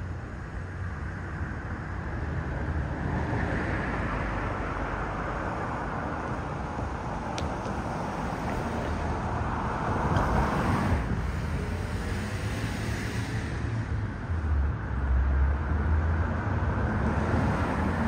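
Street traffic noise: passing cars make a steady low rumble and hiss that swells briefly about ten seconds in.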